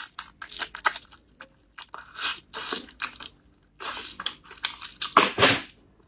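Close-up eating sounds of biting and chewing tender braised pork knuckle meat: a string of short, wet smacks and clicks, with one louder, longer bite about five seconds in.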